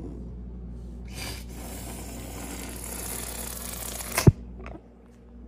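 Serval hissing: a long breathy hiss of about three seconds that ends in a sudden loud spit.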